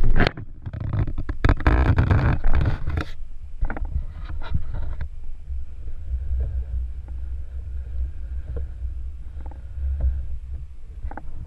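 Muffled low rumble of river water moving against a GoPro's waterproof housing set at the waterline. In the first three seconds there is loud splashing and knocking as the camera is handled and put in place, then a steady rumble with a few faint clicks.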